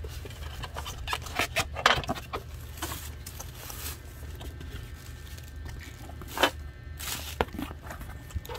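Cardboard box and packaging being handled and pulled open: scattered scrapes, rustles and knocks, busiest about one and a half to two seconds in, with single sharper knocks near the end. A steady low hum runs underneath.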